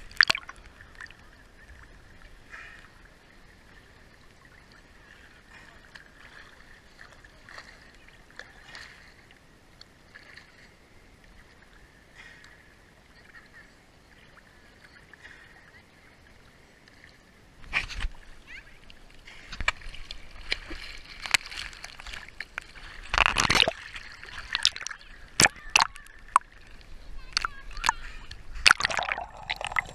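Sea water sloshing and splashing: quiet lapping at first, then from about two-thirds in a busy run of sharp splashes and knocks.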